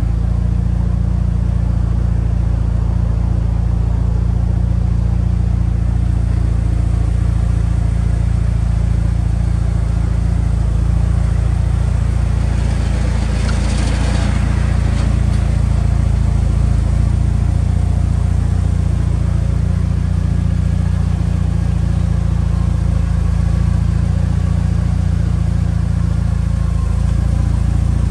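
Mitsubishi Lancer Evolution VIII MR's turbocharged four-cylinder, a G-Force complete engine, idling steadily. There is a short swell of rushing noise about halfway through.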